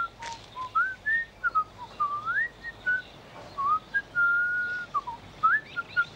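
A person whistling a tune: a clear single tone sliding up and down in quick short notes, with one longer held note about four seconds in.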